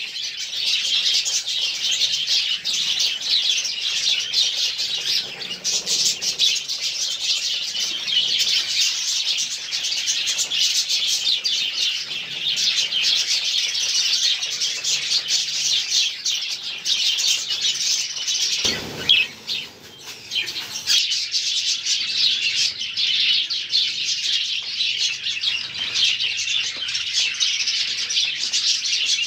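A large flock of budgerigars chattering and chirping continuously in a breeding aviary, a dense overlapping twitter that briefly dips about two-thirds of the way through.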